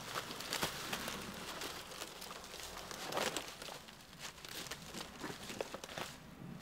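A slab of dry dead pine wood and bark cracking and tearing free from a standing trunk, then dry fallen leaves crunching underfoot as it is dragged along, with a thump near the end as it is thrown to the ground.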